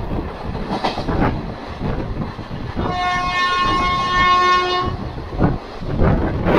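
Indian Railways express train running at speed: steady wheel-on-rail rumble with a few clacks over the rail joints. About three seconds in, a train horn sounds one steady, multi-toned blast lasting about two seconds.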